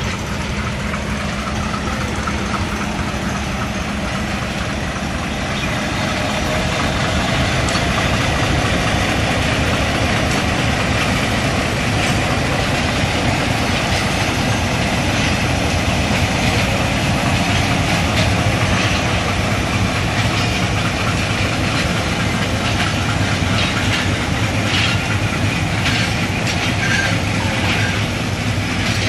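Pakistan Railways Hitachi diesel locomotive running as it pulls a passenger train away from a station and passes at low speed, its engine giving a steady low hum. In the last few seconds the coaches' wheels start clicking over the rail joints.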